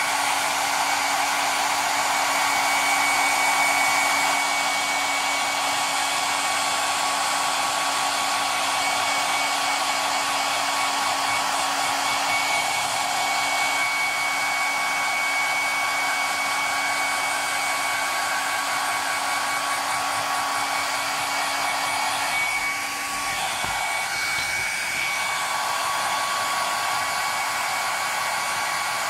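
Hair dryer running steadily, blowing hot air to shrink a new heat-shrink wrap onto a battery. It drops slightly in level about 23 seconds in.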